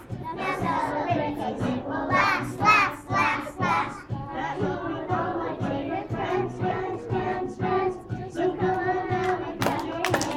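A group of preschool children singing a song together, with steadier held notes in the second half.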